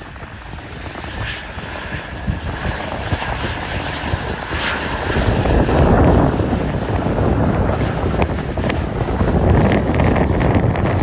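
Jet airliner engines, a broad rushing noise with a faint whine, swelling about five seconds in and staying loud, mixed with wind buffeting the microphone.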